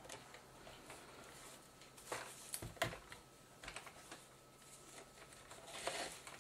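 Faint scattered clicks and knocks of hands handling a Sony DSR-PD170P camcorder's body during reassembly, with a few sharper taps near the middle and a longer rustle near the end.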